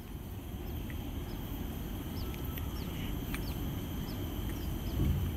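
Birds chirping: scattered short, falling calls over a steady low rumble.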